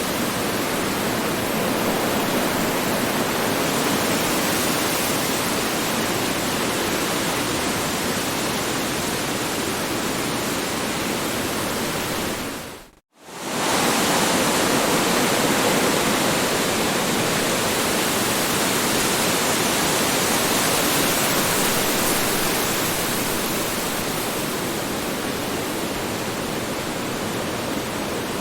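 Strong wind rushing steadily, a dense even roar with no gusts standing out. About halfway through it fades out to near silence for a moment and swells straight back.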